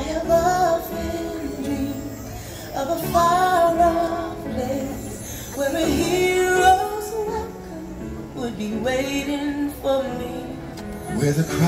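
Fireworks-show soundtrack music with a singer's voice carrying the melody in phrases a few seconds long.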